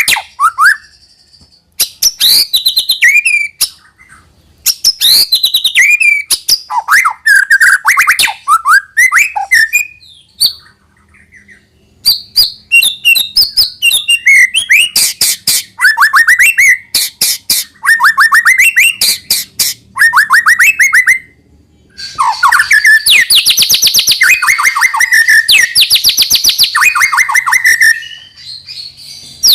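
White-rumped shama (murai batu) singing in loud phrases of rapid, downward-sweeping notes, with short pauses between phrases.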